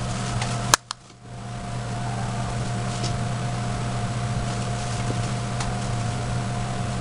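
Steady background hum with a constant tone, of the kind a fan or air conditioner makes. Less than a second in there is a single sharp click, the sound drops out for a moment, then the hum resumes.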